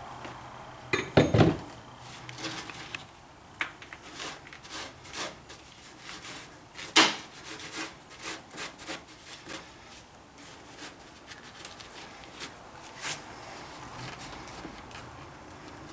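Wooden knocks, clicks and scraping as a door and a hole saw drilling jig are handled, with two louder knocks about a second in and about seven seconds in and lighter taps and rubbing between. The drill is not running.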